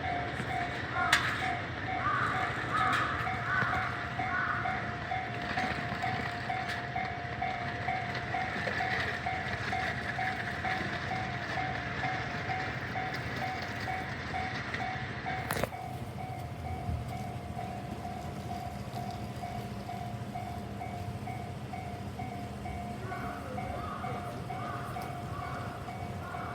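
Japanese railroad-crossing warning bell ringing steadily, an electronic ding repeating about twice a second. The crossing is signalling an approaching train.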